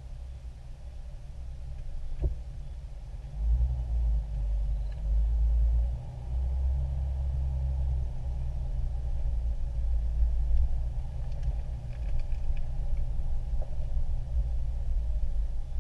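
Off-road vehicle driving slowly over a rough grassy trail, heard from inside the cab: a low rumble of engine and tyres that swells and eases over the bumps. There is a single sharp knock about two seconds in and a few light rattles later on.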